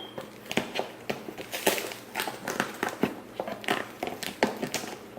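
Knife cutting open a cardboard shipping box: a steady run of irregular scratchy crackles and scrapes as the blade drags through the box.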